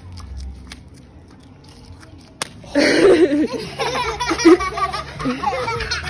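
A group of small children laughing and giggling together, bursting out loudly about three seconds in after a quieter start. A single sharp tap comes just before the laughter.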